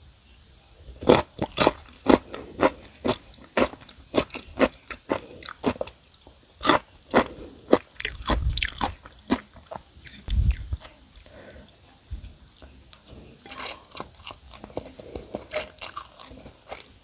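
Close-miked crunching and chewing of crispy-coated chicken: quick, irregular sharp crunches, with two dull low thumps in the middle and a short pause before the crunching starts again.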